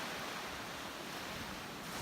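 Ocean surf washing onto the shore: a steady, even hiss of breaking waves.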